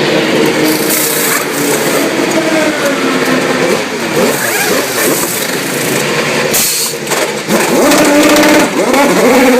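IndyCar race cars running on track, their engines revving up and down through the gears. The sound dips briefly about seven seconds in, then the pitch climbs again in rising sweeps near the end.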